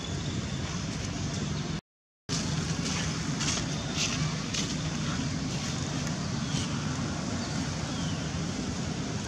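Steady outdoor background rumble and hiss, of the kind wind on a microphone makes. It cuts out completely for about half a second around two seconds in, then a few short faint clicks follow.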